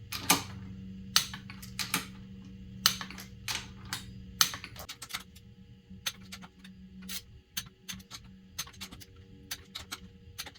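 Click-type torque wrench ratcheting on bolts being tightened alternately to 14 ft-lb: a run of light, irregular clicks, with a steady low hum underneath.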